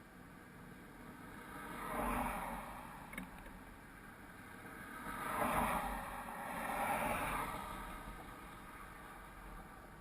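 Vehicles passing: three whooshing swells that each rise and fade over a second or two, about two, five and a half, and seven seconds in, over a low steady rumble.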